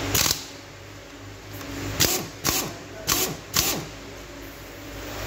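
One sharp knock, then four more in quick succession about two seconds in, from tools or engine parts being handled during work on the engine, over a steady low hum.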